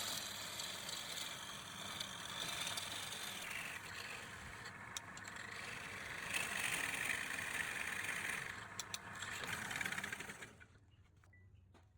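Wood lathe running while the spinning wood is worked, a steady noisy whir with a few sharp clicks, then falling quiet about ten seconds in.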